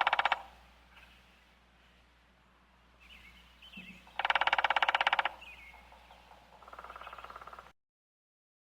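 Woodpecker drumming: three rapid drum rolls about a second long each, the last one fainter, with small bird chirps in the background.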